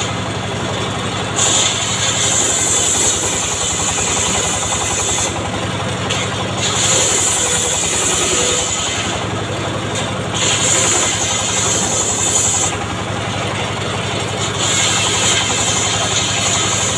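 Cart-mounted circular saw cutting acacia planks, its engine running steadily throughout. A high-pitched cutting whine rises over the engine four times as boards pass through the blade, each cut lasting two to four seconds, with the engine alone between cuts.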